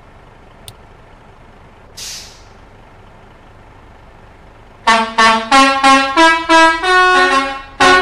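Bus telolet horn, a set of tuned air horns, playing a quick melody of short notes about three a second, starting loudly about five seconds in. Before it there is only a low background hum, with a short hiss about two seconds in.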